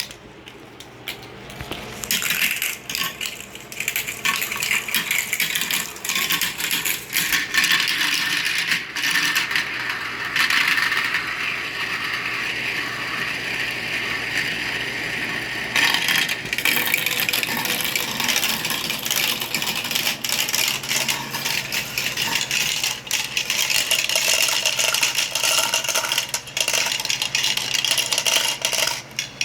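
Steel marbles rolling and clattering down a plastic wall-mounted marble-run track, a steady stream of small ticks and knocks, with a stretch of continuous rolling in the middle.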